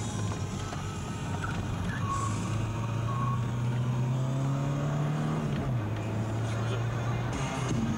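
VW Jetta's engine heard from inside the cabin under acceleration, its note rising steadily. A little over halfway through, the pitch drops suddenly at a gear change, then the engine pulls on steadily.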